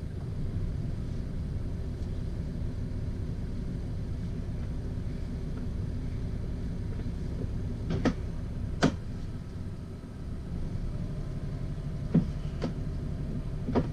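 A catamaran's engine running steadily at manoeuvring speed while reversing into a berth, a low rumble that dips briefly about ten seconds in. A few sharp clicks come around eight, nine and twelve seconds in.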